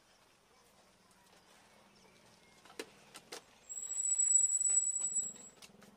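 Steel idli steamer pot and plate stand being handled: two metal clinks, then a high, steady squeal lasting about a second and a half.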